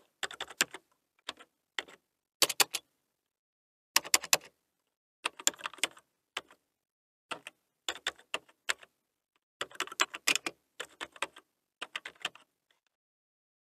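Typing sound effect: runs of quick keyboard key clicks separated by short pauses, as text is typed out.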